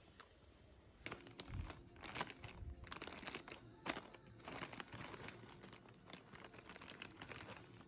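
Packaging crinkling and crackling as it is handled, in irregular rustles that start about a second in and keep going.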